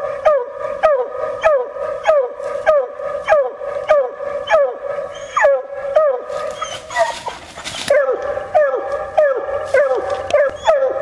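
Bluetick coonhound barking steadily at the tree, about two short falling barks a second, the treed bark of a hound holding a raccoon up a tree. About six seconds in, a second and a half of rustling noise sounds over the barks.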